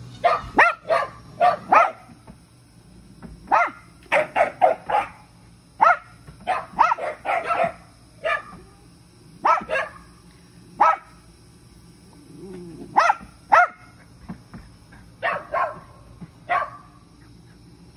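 Dog barking in short, sharp barks, sometimes single and sometimes in quick runs of two to five, with gaps of a second or two between them.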